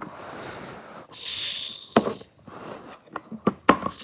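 Heavy breathing right against a phone's microphone, the phone held in the mouth: two long, hissing breaths, then a few sharp clicks and knocks.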